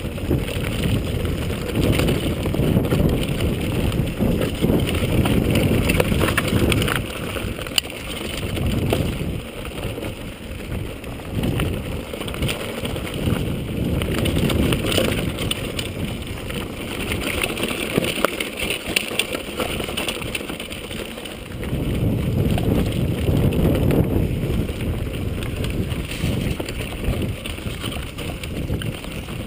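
Wind buffeting the microphone: a low, uneven rumble that surges and eases every few seconds, with scattered small clicks.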